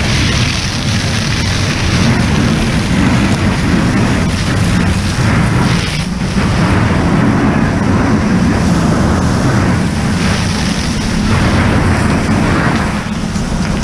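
Fire hose stream flowing at close range onto a burning structure: a loud, steady rush of water with a heavy low rumble.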